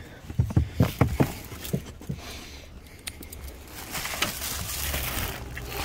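A dog moving about on a fabric-covered car back seat: a few soft knocks in the first second or so, then quieter rustling and scattered clicks.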